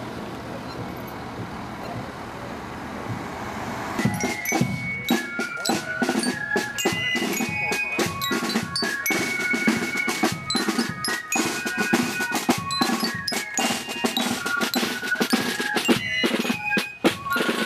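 A marching band of snare and bass drums with fifes starts playing about four seconds in: a driving drumbeat under a high fife melody of held notes. Before that there is only steady outdoor street noise.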